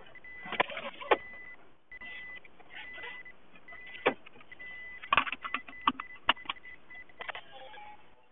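Sounds inside a moving car's cabin: a steady high-pitched tone that keeps cutting in and out, with a faint low hum beneath it and scattered sharp clicks and knocks, which come thickest about five to six and a half seconds in.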